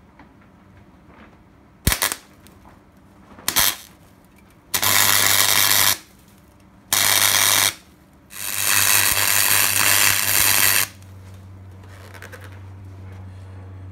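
MIG welding a steel plate onto a chassis rail: two brief crackles of the arc, then three runs of steady crackling hiss, about a second, under a second and about two and a half seconds long. A low steady hum carries on after the last run.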